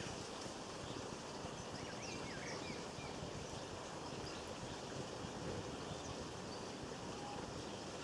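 A few faint, short bird chirps in the first few seconds over a steady outdoor rushing background.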